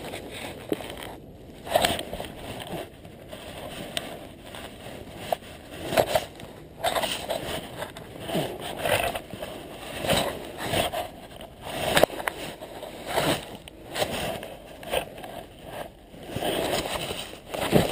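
Wind buffeting and fabric rustling on a helmet camera's microphone during a parachute descent under canopy, coming in irregular swells about once a second with a few sharp clicks.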